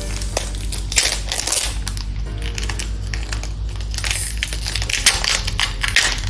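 Crinkling and rustling of a foil Pokémon booster pack and cards being handled, in dense crackly bursts.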